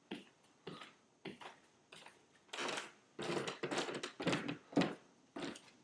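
Footsteps coming down a wooden staircase: an even tread at first, then louder, closer steps from about halfway through.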